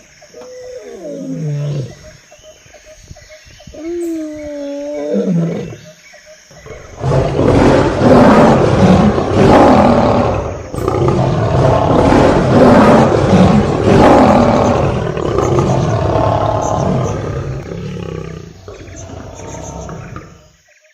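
Lion roaring: two short moans falling in pitch, then from about seven seconds in a long, loud roaring bout with calls coming about once a second, fading away toward the end.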